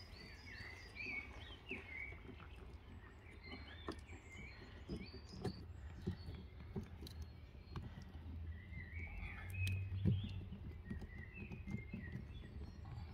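Small birds chirping and singing in the background, with scattered small clicks and knocks from hands working on bark and wooden sticks close by; a slightly louder low knock about ten seconds in.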